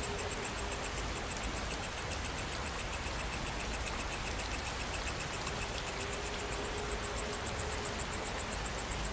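Steady rain falling, an even hiss without thunder, with a rapid, evenly pulsing high-pitched chirring of insects over it.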